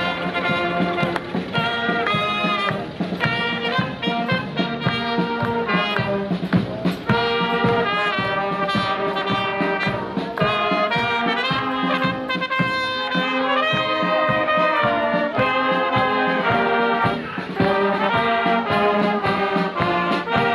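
Brass band music with trumpets and trombones, playing a tune over a steady beat.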